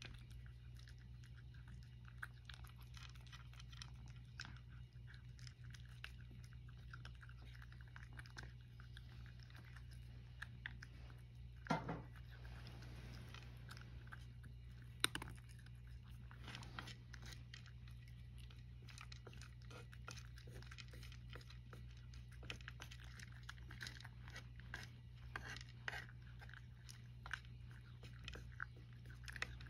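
A cat chewing and crunching dry kibble, a steady run of small crunches. Two louder sharp knocks come about midway, a few seconds apart.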